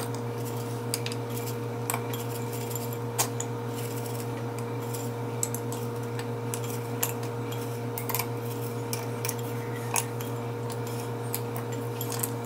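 Steady low hum under a few faint, light taps and clicks from handling a small glass bowl while sprinkling shredded mozzarella onto scallop shells.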